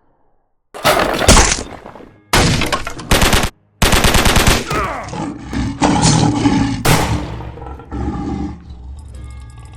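Battle sound effects: loud bursts of machine-gun and gunfire starting about a second in, cut in and out abruptly, with rapid automatic fire in the middle.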